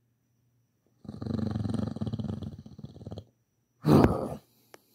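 A tiger's growling roar lasting about two seconds, followed near the end by a second, shorter and louder burst.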